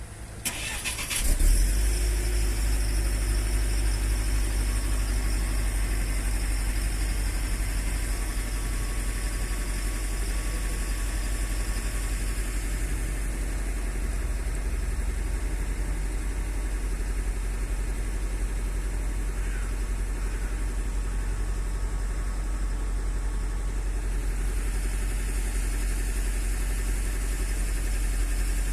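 An engine starting about a second in, then running steadily at idle with a deep, even hum.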